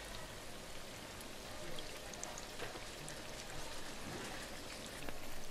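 Doughnuts deep-frying in hot oil: a steady sizzle with small scattered pops, while they fry to a golden-brown colour.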